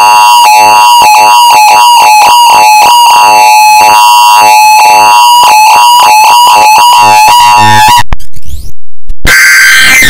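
Simulated Emergency Alert System alarm audio, loud and distorted: a steady high alarm tone overlaid with warbling, sweeping electronic effects that cut off about eight seconds in, followed by short electronic bursts separated by silent gaps.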